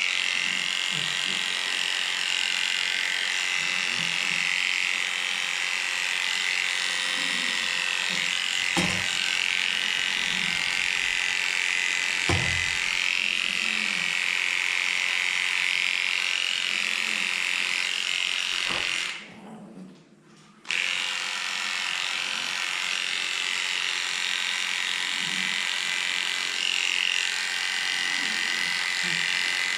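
Electric dog grooming clippers switch on and run with a steady high buzz. They cut out briefly about two-thirds of the way through, then start again.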